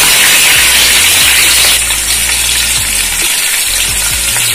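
Sliced onions sizzling in hot oil in a pan, a steady frying hiss that eases slightly about two seconds in.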